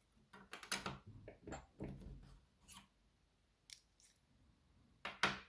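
Small metal clicks and scrapes from prying at the C-clip that retains the plug of a DOM RS Sigma euro cylinder, in scattered ones and twos, with the sharpest, loudest clicks about five seconds in.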